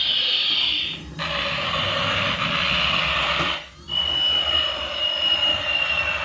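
A small electric motor whirring with a high, slowly falling whine, cutting out briefly twice.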